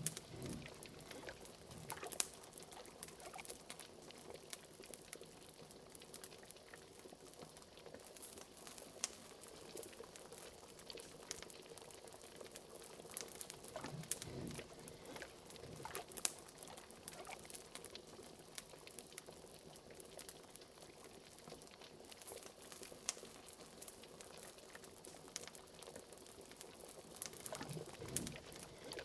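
Liquid bubbling at a boil in a cauldron, with frequent small sharp crackles of a wood fire. Deeper bubbling swells come about two seconds in, around fourteen seconds in and near the end.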